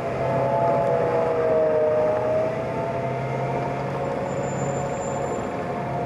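Armored military vehicle running as it drives away, a steady engine and drivetrain whine that wavers slightly in pitch.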